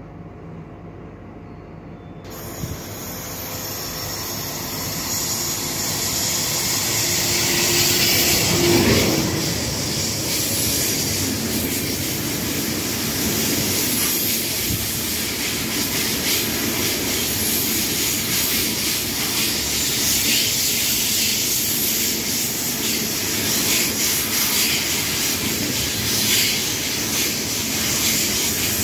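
Long freight train of covered bulk hopper wagons passing close by. The rolling noise builds from about two seconds in to its loudest around nine seconds, then holds as a steady, loud noise of wheels on rail while the wagons run past.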